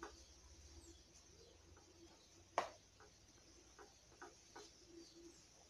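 Faint scrapes and light taps of a small spoon spreading thick peanut-and-rapadura candy mixture in a metal baking tray, with one sharper clink about two and a half seconds in.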